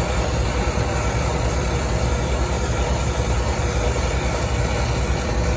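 Brazing torch flame burning steadily, a constant hiss with a low rumble, as it heats a copper refrigerant line joint on a compressor to draw the brazing filler in.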